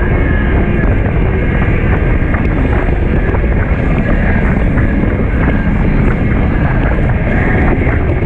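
Steady wind rush and road rumble inside a car cruising at highway speed, with wind buffeting the microphone.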